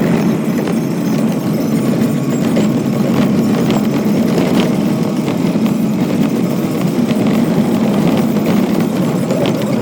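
A vehicle engine running steadily, a continuous low rumble with a few faint clicks over it.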